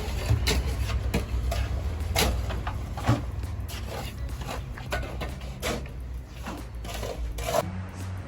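A large engine running steadily with a low rumble, with repeated sharp knocks and clatter over it.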